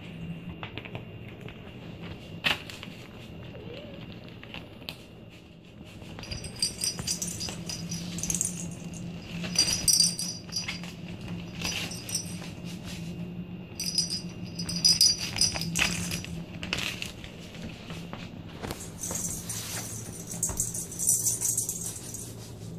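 Small bell inside a hollow plastic cat-toy ball jingling in irregular bursts as kittens bat it about, with occasional light knocks, over a steady low hum.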